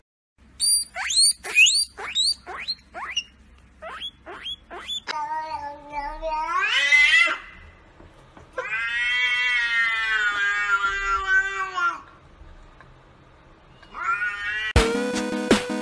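Domestic cat vocalising: a quick run of about ten short chirps, each rising in pitch, then a long meow that climbs in pitch, then a long drawn-out meow held steady. A short rising meow comes near the end.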